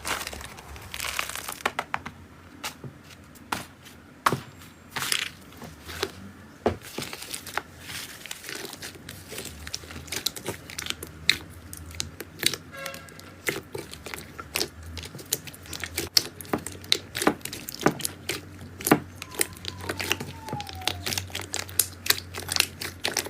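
Slime being squeezed and worked by hand, giving irregular sharp pops and crackles, several a second.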